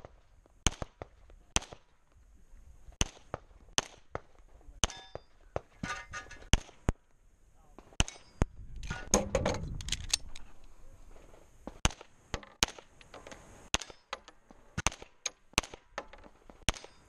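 A long string of single handgun shots fired one-handed, spaced irregularly from about a third of a second to a second and a half apart. A stretch of low rumbling noise comes about halfway through.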